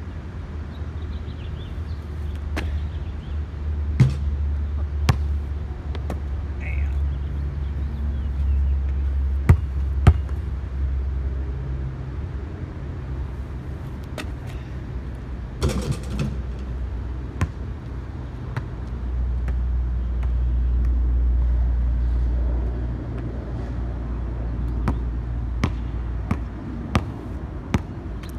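Basketball bouncing on a concrete court: a few single bounces early on, a longer clatter about halfway, then a run of regular dribbles near the end. A steady low rumble runs under it all and swells for a few seconds past the middle.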